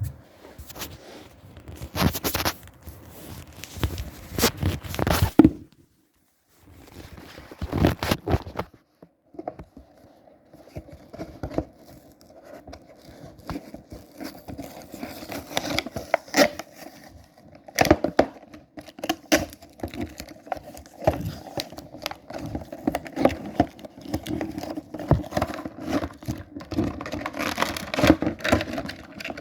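Beyblade Burst packaging being torn open and handled: irregular tearing, crinkling and scraping with sharp clicks of plastic parts.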